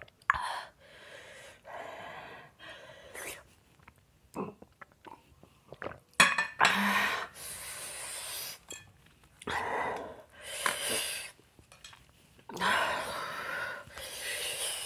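A woman's hard, noisy breaths out through the mouth, several in a row and heavier from about halfway through, against the mouth burn of the very hot Jolo chip she has eaten. Light clinks of a glass and of a spoon on a small cup come between them.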